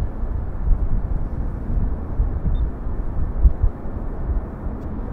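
Low rumble of the Boeing E-3A Sentry's four Pratt & Whitney TF33 turbofan engines on its takeoff run, with wind buffeting the microphone in uneven gusts.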